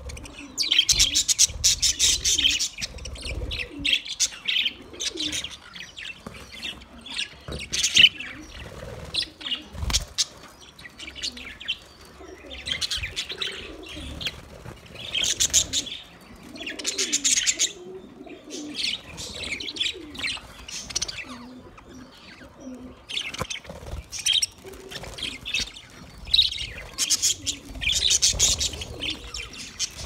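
A flock of budgerigars chirping and chattering in bursts of high, rapid chirps every couple of seconds, with a few sharp clicks, the loudest about eight seconds in.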